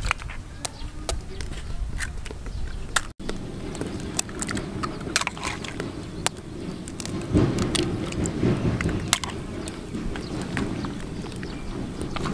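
Eggshells cracking, then a spoon stirring raw shark meat and broken eggs in a plastic bowl: a run of sharp clicks and cracks. A low rumble lies underneath in the second half.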